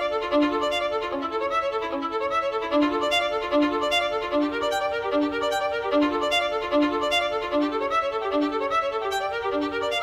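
Instrumental background music: a quick, evenly paced run of pitched notes at a steady level.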